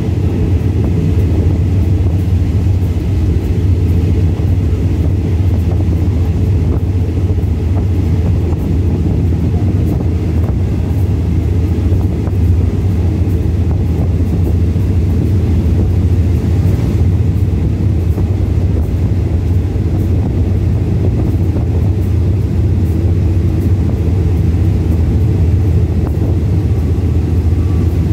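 Passenger train carriage running along the track, heard at an open vestibule doorway: a steady, loud low rumble of wheels on rails and rushing air.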